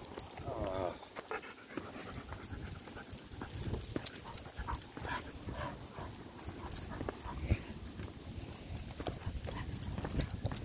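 Footsteps and dogs' paw steps on a walk, with a dog panting.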